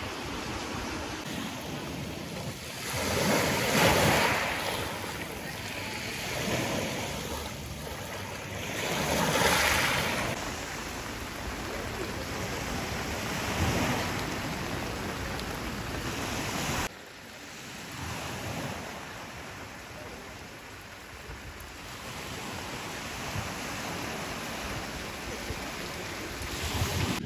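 Sea surf washing onto the beach, with a louder wave breaking about every five seconds in the first half and wind buffeting the microphone. About two-thirds of the way through, the sound drops suddenly and the surf carries on more softly.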